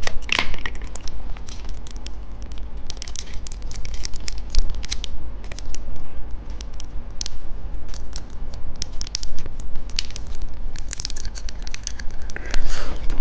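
Close-miked crackling, scratching and clicking of hard candy and its plastic packaging being handled and eaten, as a dense run of small sharp clicks.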